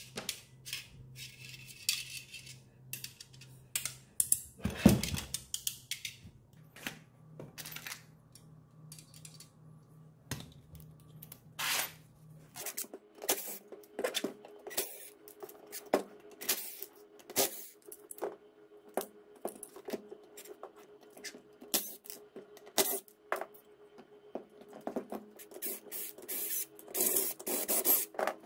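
Small metal clinks, taps and scrapes as screws and tools are handled on the metal casing of a model jet turbine engine being taken apart, with one heavier knock about five seconds in. Near the end a cordless drill-driver whirs in short bursts, backing out casing screws.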